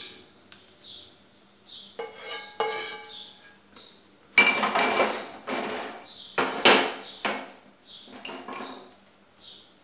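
Slotted spatula knocking twice against a pan with a ringing clink. It then scrapes loudly over a non-stick pan in two long strokes, with a lighter scrape near the end, as fried dry fruits are scraped out of the pan.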